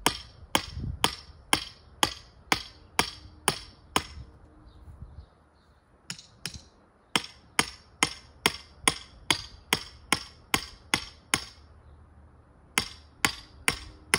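Hammer striking the top of a metal rotisserie ground stake, driving it into the ground: quick sharp metallic blows, about three a second, in runs broken by two short pauses.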